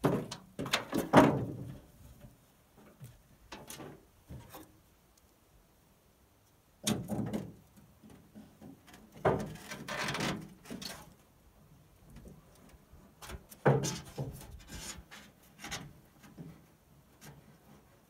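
Gear being shifted around inside an aluminum canoe: irregular clunks and scraping against the metal hull, in four short spells with quiet gaps between.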